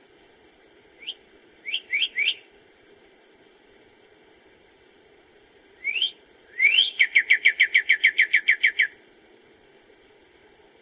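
A songbird singing. It gives a few quick rising whistled notes, then after a pause two more rising notes that run into a fast, even trill of about fourteen falling notes, around seven a second, which stops sharply. A faint steady hiss lies underneath.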